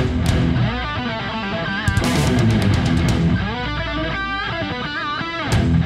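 Hard rock music with electric guitar leads and a strong low end.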